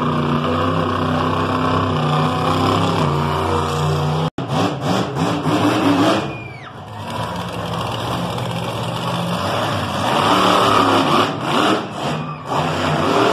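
Monster truck engines running loud and revving up and down as the trucks drive across the dirt arena. A brief dropout about four seconds in where the recording cuts.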